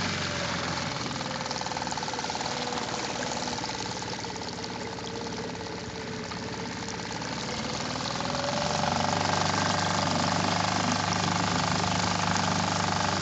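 Suzuki 2.5 hp single-cylinder four-stroke outboard motor running steadily with the boat under way, getting louder about two-thirds of the way through as it picks up revs.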